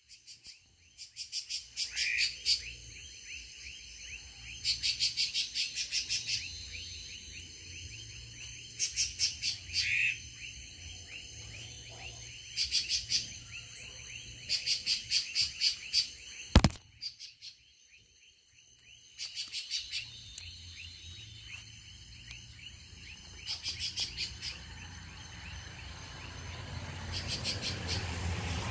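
Evening chorus of calling animals: bursts of rapid, high-pitched pulsed calls about every three to four seconds over a steady high drone and a low hum. There is one sharp click about two-thirds of the way through.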